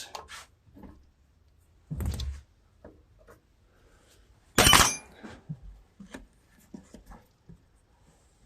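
Metal hand tools clicking and clanking against an engine's carburetor fasteners while it is unbolted, with two louder knocks about two seconds and about four and a half seconds in.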